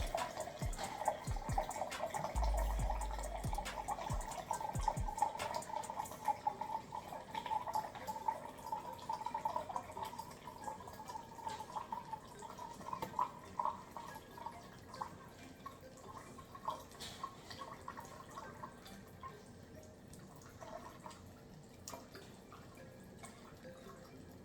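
Water trickling from an alkaline water filter's spout into a measuring cup, a thin rippling stream that weakens and fades out about three quarters of the way through. A few low knocks sound in the first few seconds.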